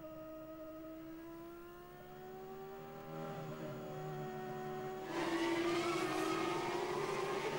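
Formula One V10 engine heard from the Ferrari's onboard camera, its pitch climbing slowly as the car accelerates. About five seconds in the sound jumps to a louder, harsher trackside engine sound of a Formula One car running past.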